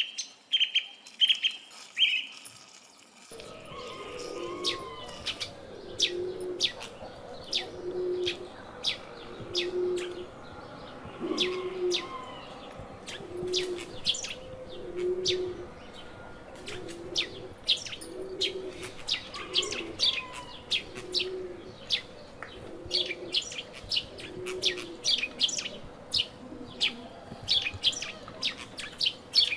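Birds chirping busily while a dove coos over and over, a low call about every second and a half to two seconds; the birds start abruptly about three seconds in, after a few short high notes.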